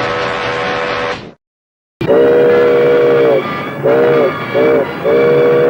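Sierra Railway No. 3 steam locomotive's whistle blowing a chord of several tones. One blast ends about a second in. After a brief silence comes another long blast, two short toots and a further long blast.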